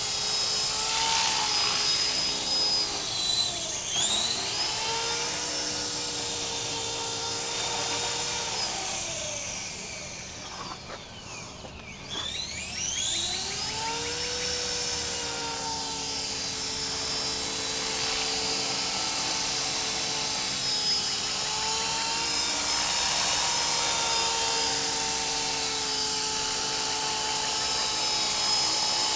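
A CopterX 450SE electric RC helicopter flying, with a steady whine from its motor and rotor that wavers in pitch with throttle. About ten seconds in the pitch falls and it quietens as the helicopter is set down. Around thirteen seconds in it spools back up with a rising whine and flies on.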